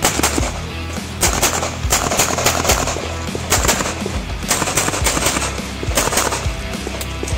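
Pistol fired in rapid strings of shots: quick pairs and fast bursts with short pauses between them, as targets are engaged one after another. Background music plays underneath.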